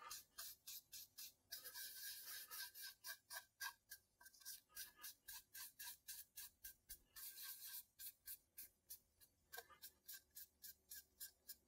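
Faint, quick scrubbing of a wadded cotton rag rubbed back and forth over a quilted maple guitar top as yellow leather dye is worked in, about five strokes a second.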